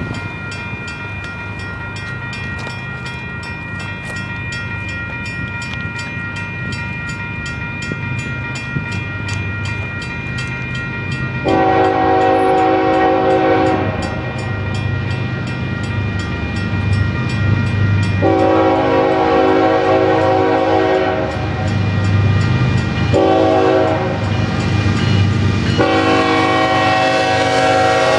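Level-crossing bell ringing steadily while a Union Pacific diesel locomotive approaches and sounds its air horn in the grade-crossing pattern: long, long, short, long, starting about twelve seconds in. The low rumble of the diesel engines and wheels grows as the double-stack train reaches the crossing.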